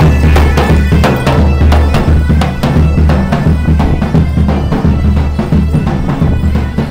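Medieval-style band playing bagpipes over a steady drone, with a large drum beating in a steady rhythm.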